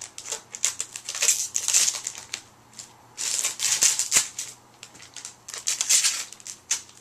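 Plastic packaging crinkling and rustling in uneven bursts as a remote control is pulled out of its wrapping, with a lull of about a second in the middle.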